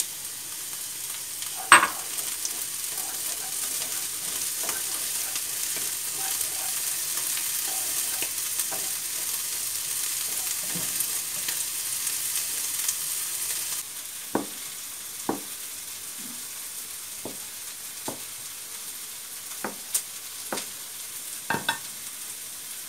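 Onions and red pepper frying in olive oil in a pan, sizzling steadily, with a utensil knocking against the pan now and then as they are stirred. The sizzle turns quieter about two-thirds of the way through.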